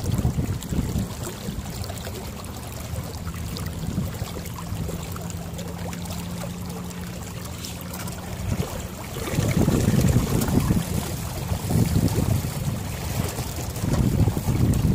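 Wind buffeting the microphone on a sailboat under way, with water washing along the hull; the gusts grow much louder about nine seconds in. A steady low hum runs underneath for the first half.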